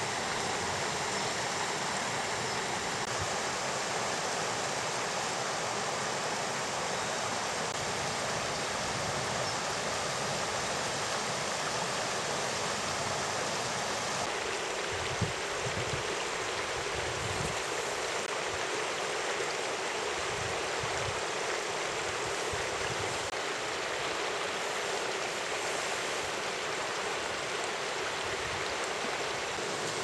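Mountain stream rushing over stones in a rocky bed, a steady, unbroken water noise.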